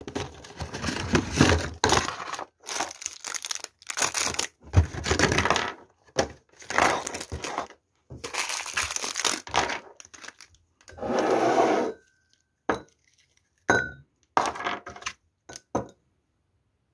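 Thin plastic packaging crinkling and rustling in repeated short bursts as it is handled and opened; the bursts thin out to a few brief crackles near the end.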